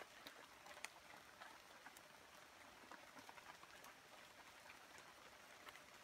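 Faint patter of water drops falling on leaves: a soft, steady hiss dotted with scattered sharper drip ticks.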